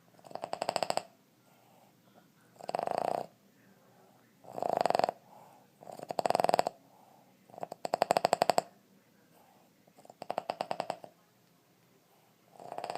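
Boston Terrier snoring in its sleep: each snore is a fast rattling flutter that sounds like a woodpecker drumming. About one snore every two seconds, six in all, with a seventh starting at the very end.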